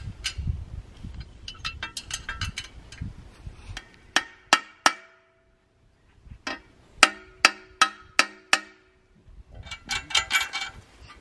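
Hammer blows on the steel foot of a windmill tower, each with a short metallic ring. There are three quick blows about four seconds in, a pause, then about six evenly spaced blows. Lighter clinks of metal parts being handled come before and after.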